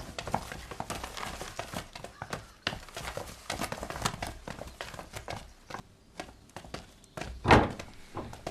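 Footsteps on a hard floor and the shuffling and knocking of people rising from a table, with light clinks and knocks of cups and wooden benches. One louder thump near the end.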